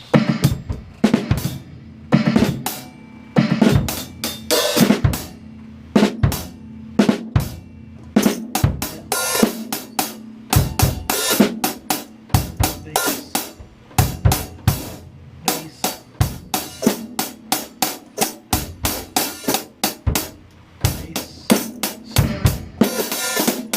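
Drum kit playing a steady groove: quick hi-hat strokes over bass drum and snare, with an extra bass-drum note, the hiccup, falling just before the beat.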